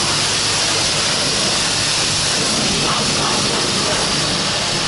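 High-pressure car-wash spray gun blasting water onto a car body: a loud, steady hiss of the water jet.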